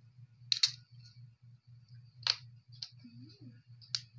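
Clam shells clicking sharply, four or five times, as they are handled and pried open by hand, over a low pulsing hum.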